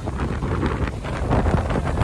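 Strong cyclone wind buffeting the microphone in irregular gusts, a heavy low rumble.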